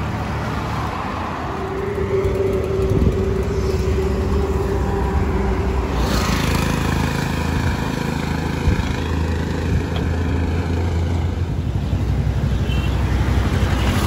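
Road traffic: engines of passing cars and heavier vehicles with tyre noise, continuous and steady. A single held tone sounds for about four seconds, starting shortly after the beginning.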